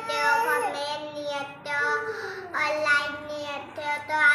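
A young girl singing, holding and sliding between notes with short breaks.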